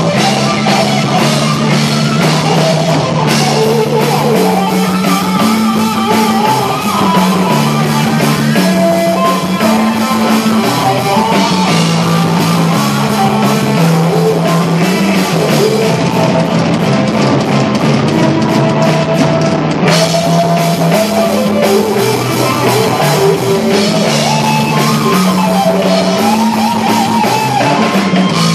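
Live blues-rock band playing: electric guitar lead lines with bent notes over a repeating bass guitar figure and drum kit. No words are sung; it is an instrumental stretch, the guitar taking the lead.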